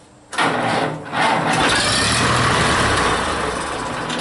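Massey-Harris tractor engine catching on starting fluid about a third of a second in and running, steady for a couple of seconds, then easing off toward the end as it begins to die. It runs only while the starting fluid lasts, which the owner thinks could mean a carburetor problem.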